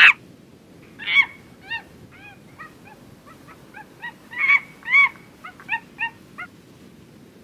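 A series of short, high, arching animal calls, about fifteen in irregular bunches, loudest a little past the middle.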